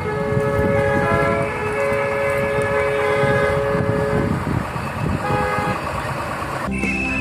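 Vehicle horns of a slow convoy of cars behind a tractor honking, several at once at different pitches in long held blasts that overlap and stop after about four and a half seconds, with a shorter toot a little later. Music starts abruptly near the end.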